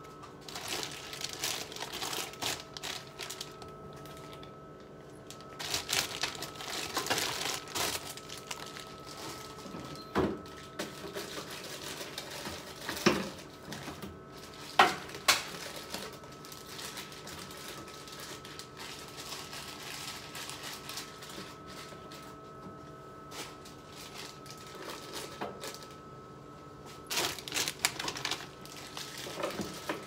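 Containers and bottles being set back into a refrigerator's plastic door bins and shelves: scattered clatters, knocks and clinks, the sharpest two about halfway through, over a steady hum.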